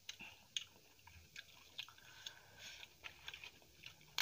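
Close-up eating sounds: soft, scattered wet clicks of a mouth chewing rice and egg curry.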